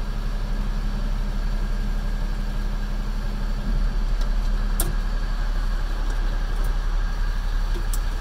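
Cummins diesel engine of a Ford F-650 dump truck idling steadily, heard from inside the cab, with a faint click about five seconds in.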